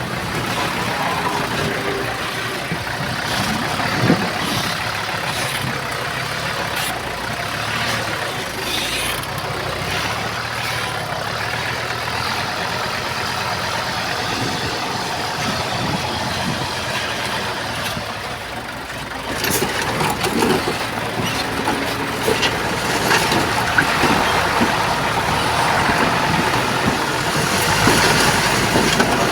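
Heavy diesel earthmoving machinery running steadily. After a brief dip a little past halfway, it gets louder, with scattered knocks and clanks.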